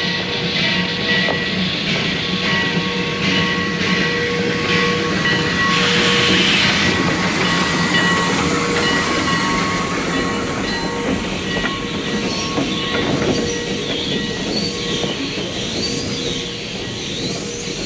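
Steam train rolling along the track, its cars clattering over the rails, with a steady high whine and a burst of hiss about six seconds in.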